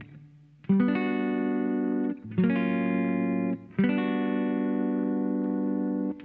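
Electric guitar played through a compressor effect: three long held notes or chords, each starting about a second and a half after the last and sustaining at an even level until it is stopped.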